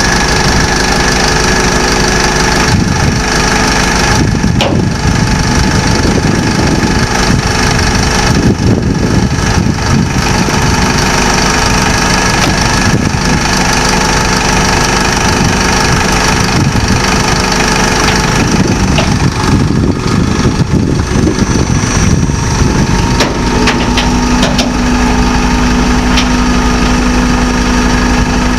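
Diesel truck engine running steadily. A steady low tone joins in about three-quarters of the way through.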